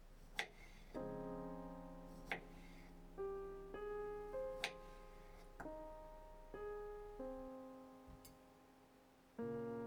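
Slow piano background music, with several sharp clicks or knocks over it.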